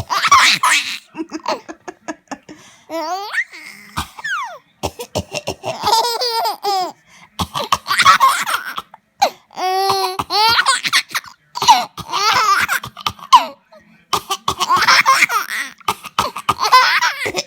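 A baby laughing in repeated bouts of high-pitched giggles and squeals, with coughs among the laughs.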